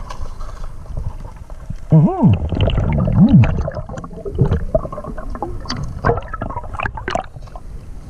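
Muffled underwater sound of a river picked up by a submerged camera: a low rumble of moving water, a gurgling warble rising and falling in pitch about two seconds in, and scattered clicks and knocks in the second half.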